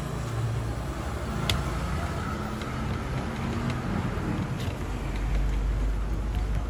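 A low, steady engine-like rumble that swells a little near the end, with a few light clicks over it.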